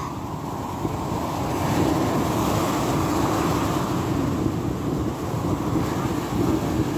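Ocean surf breaking and washing up over the sand, with wind buffeting the microphone.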